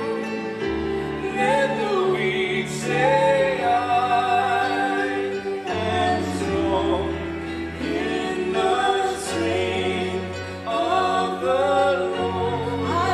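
Slow Christian worship song: voices singing a gliding melody over long sustained low chords.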